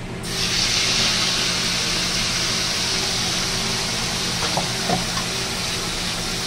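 Wet ground green masala paste hitting hot oil in a kadai and sizzling loudly. The sizzle starts suddenly just after the start and carries on steadily, easing a little. Two light spatula knocks come about four and five seconds in.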